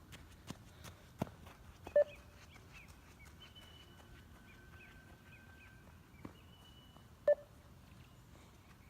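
Two short electronic beeps about five seconds apart, the 20 m beep test's shuttle timing signals. At level 11 each beep marks the end of one 20 m run. A few faint clicks and faint high chirps sit underneath.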